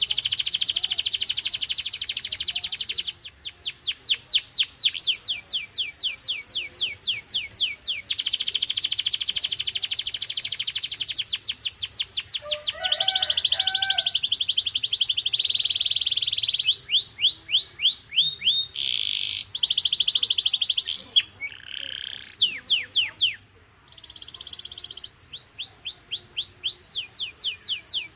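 Domestic canary singing a continuous song of rapid rolls. Each is a fast run of the same short downward-sweeping note, held for a few seconds before switching to a new roll, with a brief lower-pitched phrase about halfway through.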